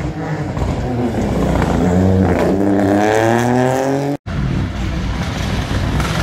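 Rally car engines at speed: one car's engine revs up steadily, rising in pitch for a couple of seconds, then cuts off suddenly. A second rally car, a Mitsubishi Lancer Evolution X, follows with its engine running at lower, steadier revs as it comes up to the corner.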